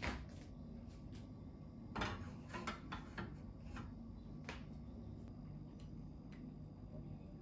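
Light knocks and clicks of kitchen items being handled on a counter. There is one at the start, a cluster about two to four seconds in, and another about four and a half seconds in, over a low steady background hum.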